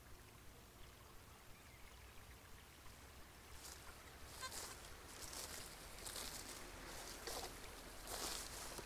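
Swishing through grass about once a second, from boots walking and a metal detector's search coil sweeping low over it, starting about three and a half seconds in; before that only a faint low hum.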